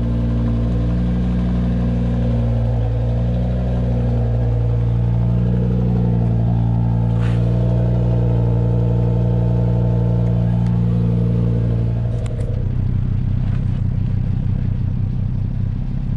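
Audi RS3's 2.5-litre turbocharged inline-five idling through a new APR exhaust while it warms up after starting. It runs steadily, then about twelve seconds in the idle drops to a lower, pulsing beat. The exhaust note is pretty quiet, almost the same as the stock system.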